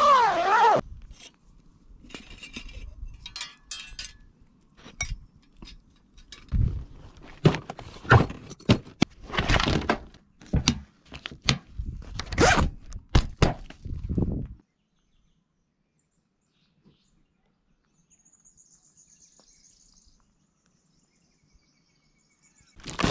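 Gear being packed up: zips pulled on canvas and rooftop bags, with thunks, rustles and knocks of camping gear over about thirteen seconds. A brief wavering call is heard at the very start, and faint bird chirping comes through the quiet that follows.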